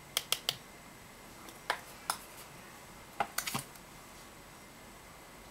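Short, sharp clicks and taps of a brush and a plastic eyeshadow palette being handled: three quick clicks at the start, two more about two seconds in, and a quick cluster a little past three seconds.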